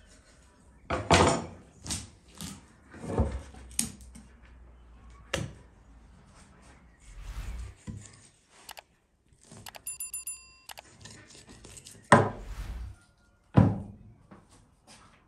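Raw lamb being butchered on a wooden table: a series of heavy, dull thuds as meat and knife strike the board, about eight in all, the loudest two near the end. A short ringing chime of a few steady tones sounds a little past the middle.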